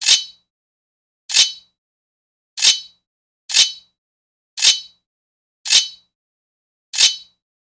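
Sword blade scraping against metal: seven short, separate scrapes about a second apart, each a bright swipe with a ringing metallic note that fades quickly.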